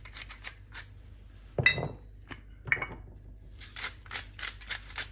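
Hand-twisted salt and pepper mills grinding over food: fast runs of dry crunching clicks from the grinding mechanism. There is one louder knock about one and a half seconds in.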